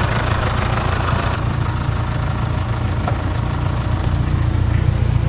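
Car engine running steadily with a low, even hum.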